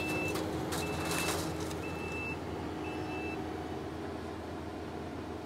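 Backup alarm on the Kubota skid steer beeping four times, about once a second, one steady high tone each, over the diesel engine running. A short rush of noise comes about a second in.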